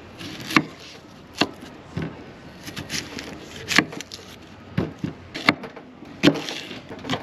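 Chef's knife cutting through an onion and knocking on a wooden cutting board, in sharp, irregular strokes about one a second.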